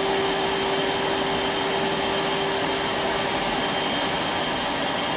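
RAETTS EXPL125-08 air-bearing high-speed blower running steadily at about 23,500 rpm, with its blow-off valve closed: a steady rush of air with a thin high whine. A lower tone under it fades out about four seconds in.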